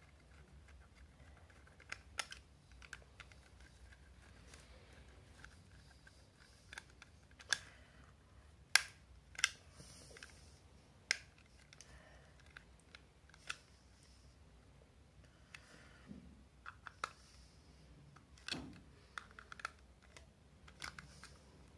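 Scattered small clicks and taps of fingers handling the plastic case of a Sonoff Basic smart switch while pushing stripped, twisted wire into its screw terminal, with a quick run of clicks near the end as a screwdriver is set to the terminal screw.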